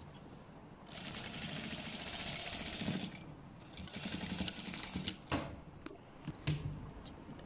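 Domestic sewing machine stitching in two runs: one of about two seconds, a short pause, then another of about a second and a half. A few short knocks follow near the end.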